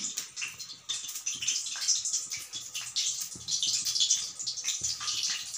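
Besan-battered bottle gourd (lauki) fritters sizzling and crackling in hot oil in a kadhai.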